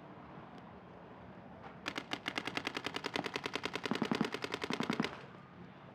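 Paintball marker firing a rapid, unbroken string of shots for about three seconds, starting about two seconds in and stopping suddenly.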